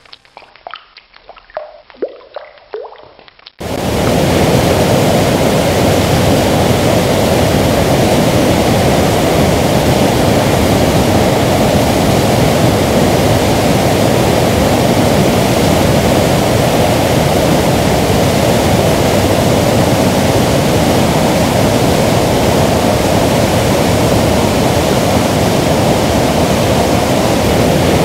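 A few sparse dripping plinks, then an abrupt switch about three and a half seconds in to the loud, steady roar of whitewater pouring over rocks at Natural Bridge falls.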